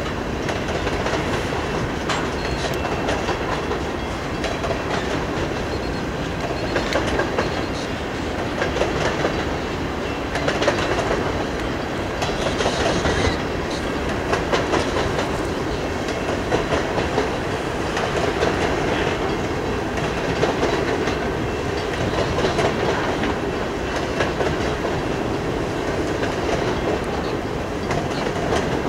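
Covered hopper cars of a freight train rolling steadily past, the steel wheels clicking over rail joints in a repeating rhythm under a continuous rolling rumble.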